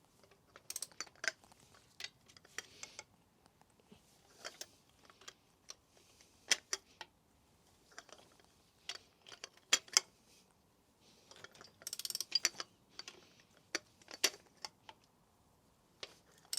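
Socket ratchet clicking in short runs as the crankshaft bearing cap bolts of a VW Golf GTI engine are undone, with scattered metallic clicks and clinks of the tools between runs.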